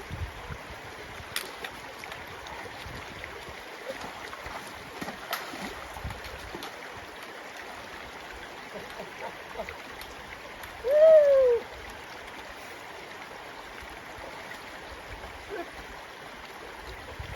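Steady wash of a river running over rocks, with a few sharp knocks. About eleven seconds in comes one loud, short pitched call that rises and then falls.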